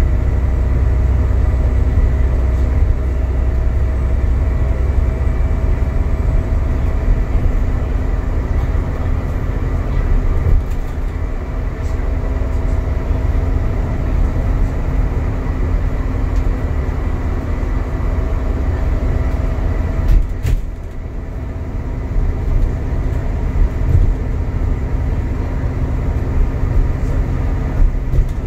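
Interior of an Alexander Dennis Enviro400 MMC double-decker bus (E40D chassis) on the move: a steady drone of diesel engine, driveline and road noise heard from the upper deck, with a few steady whining tones over a low rumble. It eases off briefly about twenty seconds in, then picks up again.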